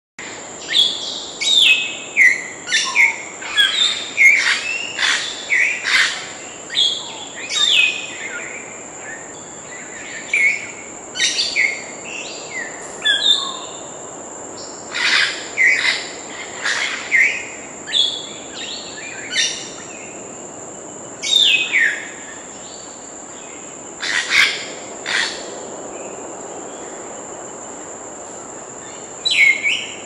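African grey parrot calls: a quick run of short whistles sweeping up and down in pitch mixed with harsher calls, closely packed in the first half and spaced further apart later. A steady high-pitched tone runs underneath.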